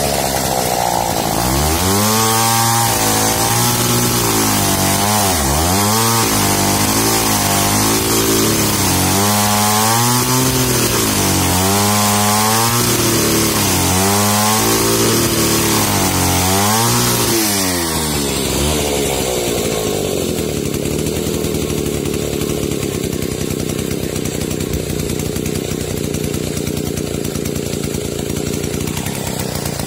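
Old two-stroke chainsaw sawing through a log, its engine pitch repeatedly dropping under load and climbing again. A little past halfway the cut is through and the engine settles to a steady, lower idle.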